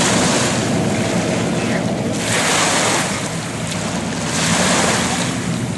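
Allison V12 aircraft engines of the wooden yacht Thunderbird running as it cruises by: a steady low drone. Wind noise on the microphone and waves on the shore rise over it in gusts about two seconds in and again near the end.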